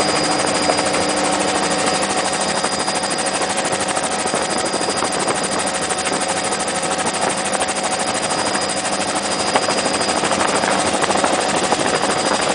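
Helicopter running steadily, a loud, even drone with a few steady whining tones over it.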